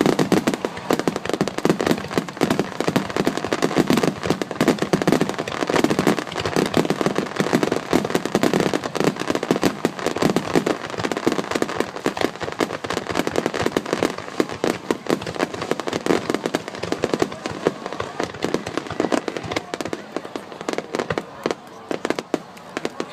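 A dense barrage of aerial fireworks bursting: a rapid, unbroken run of bangs and crackles that thins out over the last few seconds.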